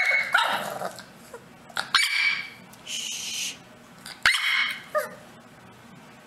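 English bulldog puppy barking and yapping up at its owner in about four short bursts of high, yappy barks, demanding attention.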